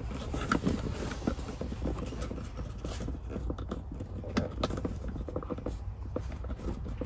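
Small irregular clicks, taps and scrapes of hands pushing a crimped spade terminal onto the pin on the back of an accessory socket in its plastic housing.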